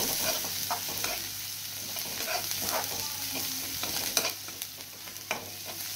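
Chopped onions frying in oil in a kadai, sizzling steadily as they turn light brown, while a spatula stirs them, scraping and clicking against the pan now and then.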